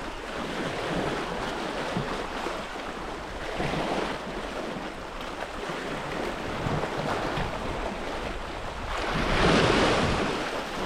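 Sea waves washing against rocks, with wind on the microphone; the wash swells and eases in waves, with a louder surge near the end.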